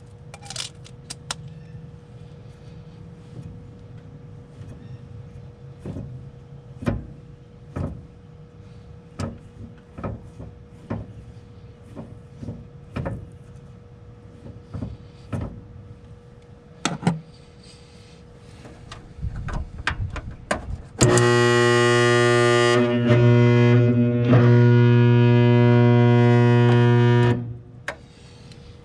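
Scattered clicks and knocks of handling. Then, about 21 s in, a loud steady electric buzz starts, breaks off briefly, and stops after about six seconds. It fits a seized draft inducer motor on a Lennox gas pack humming under power without turning: the motor is locked up.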